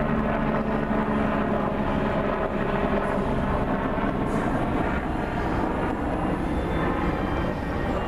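A steady engine-like drone, its low hum fading in the first seconds and leaving a continuous noisy rumble.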